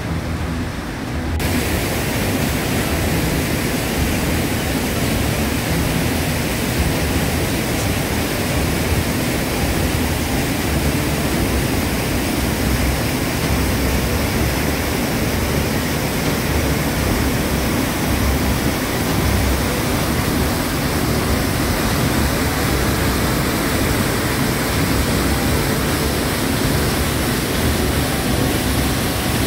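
Waterfall and whitewater rapids rushing: a loud, steady hiss of falling, churning water that turns brighter about a second in.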